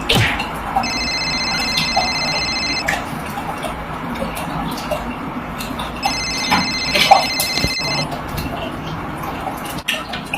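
Telephone ringing twice, each ring a high, rapidly pulsing electronic tone lasting about two seconds, with a pause of about three seconds between them, over steady background noise and a few sharp clicks.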